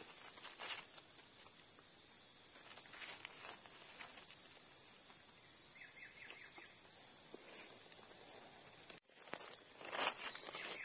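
Insects buzzing in a steady high-pitched chorus, dropping out for an instant about nine seconds in. Faint ticks and rustles come from a knife digging in soil and leaf litter.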